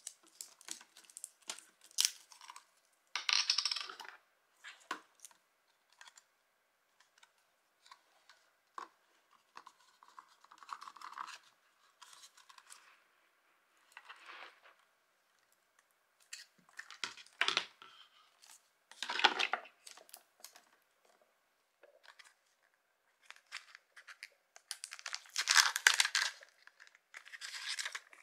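Hands handling a plastic single-serve drink machine, with scattered plastic clicks and knocks and short rustles. Near the end comes the loudest sound, a crinkly rustle as the foil lid is peeled off a capsule.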